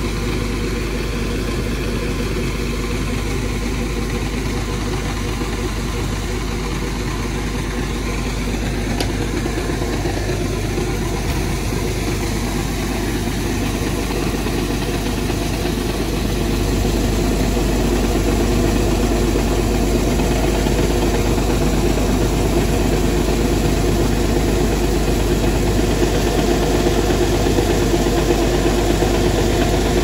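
Bulk feed truck unloading: its engine runs steadily to drive the unloading system, with feed pellets pouring from the delivery pipe into a bin. The sound gets somewhat louder about halfway through.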